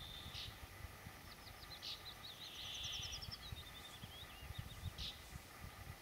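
A songbird, which the uploader takes for a woodlark, sings one phrase of quick repeated notes from about a second in until near five seconds. The notes climb and then slide down in pitch. Under it is a low, gusty rumble of wind on the microphone.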